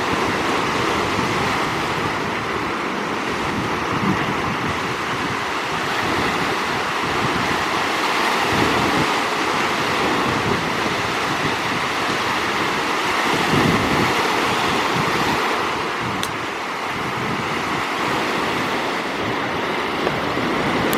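Sea surf washing steadily on the shore, with wind buffeting the microphone in gusts.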